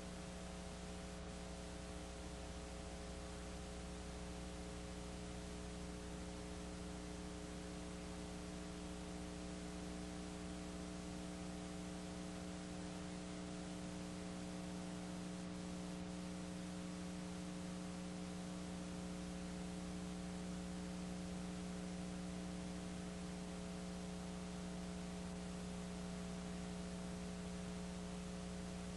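Steady electrical mains hum with a stack of higher overtones over an even hiss; no game or crowd sound comes through.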